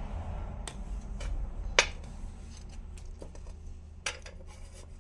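Several sharp clicks of a copper coin and small capped bottles being handled and set down on a tile floor, the loudest a little under two seconds in. A low steady hum runs underneath.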